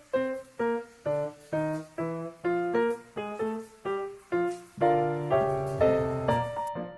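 Background piano music: a light melody of single struck notes, turning to fuller chords near the end.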